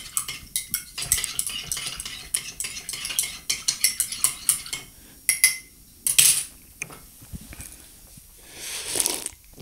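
Metal spoon stirring coffee in a ceramic mug, clinking quickly against the sides for about five seconds. A louder clatter comes about six seconds in, and a sip from the mug near the end.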